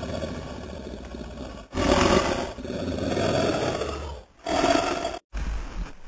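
Custom Tyrannosaurus rex roar sound effect, layered from big-animal recordings such as lions, tigers, elephants and slowed-down wolf growls. A low growl gives way about two seconds in to a long, loud roar, followed by two shorter roars that cut off abruptly.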